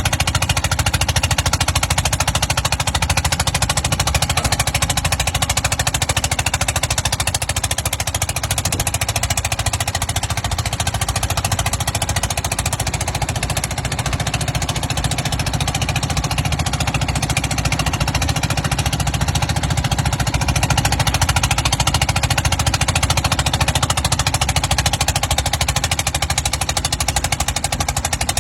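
Engine of a small 9 horsepower Calf dozer running steadily, a rapid, even beat of firing strokes that holds at much the same pace throughout.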